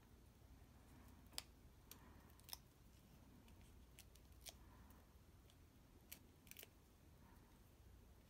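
Near silence with a handful of faint, sharp clicks and taps of paper handling: small adhesive-backed snowflake stickers being peeled off and pressed onto a cardstock tag.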